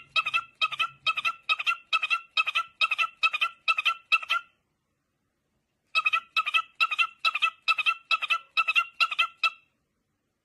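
A bird calling in a rapid run of short, evenly spaced, high calls, about two and a half a second, that stops for a second and a half in the middle and then starts again.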